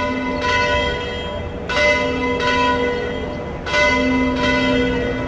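Church bells ringing: three strokes about two seconds apart, each ringing on in a long hum of several pitches that fades slowly.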